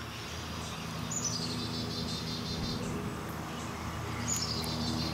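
A songbird singing twice, each phrase a high note dropping into a quick run of repeated notes, about a second in and again near the end, over a steady low hum.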